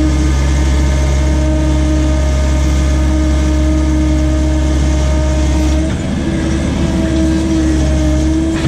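John Deere skid steer's diesel engine running steadily under load, with a steady whine over it, easing off slightly about six seconds in.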